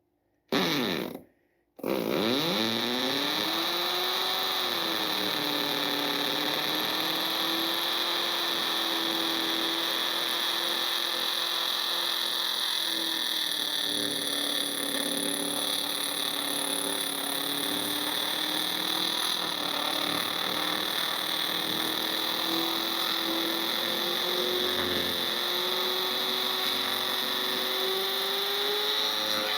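Electric drill boring a 3/8-inch anchor hole into the floor. A short first burst, then the drill spins up about two seconds in and runs steadily under load, its pitch drifting a little.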